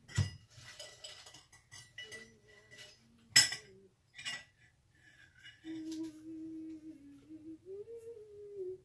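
Sharp clinks of a utensil against a dish or bowl, the loudest about three and a half seconds in. Then, near the end, a person hums a short tune.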